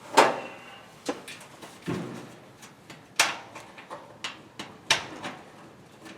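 Scattered sharp clicks and knocks of a screw and small screwdriver against the dryer's rear plate and bearing cup, the loudest about a quarter second in, with a duller thud about two seconds in, as the screw is worked to bite.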